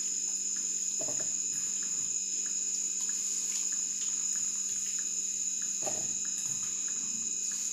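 Soft dripping and a few small splashes as soaked soya chunks are squeezed out by hand over a steel bowl of soaking water, with a steady high-pitched cricket trill behind it.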